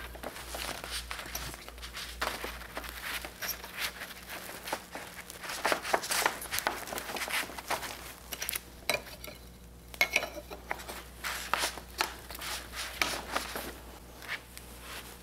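Irregular clicks, knocks and rustling as the aluminium tubes and plastic brackets of a sailboat dolly frame are moved about and a fabric sling is fitted into a bracket.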